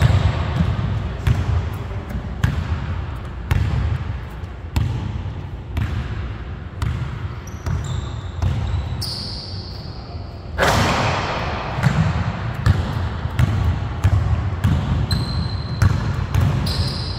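Basketball being dribbled on a hardwood gym floor, irregular bouncing thumps, with brief sneaker squeaks on the boards in a large echoing gym.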